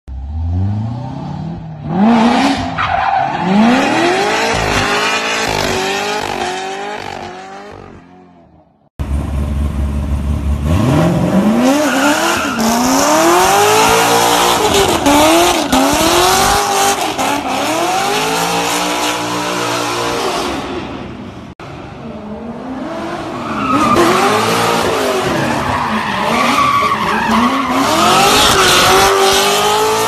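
Corvette V8 engines revving hard in repeated rising-and-falling sweeps, with tyres spinning and squealing through burnouts and drift donuts. The sound breaks off abruptly just before 9 s in and again briefly about 21 s in, where one car's run gives way to another's.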